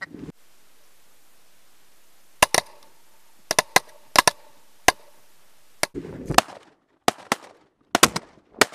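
Several shotguns firing a rapid volley of about fifteen shots, starting about two and a half seconds in, some shots overlapping within a fraction of a second of each other.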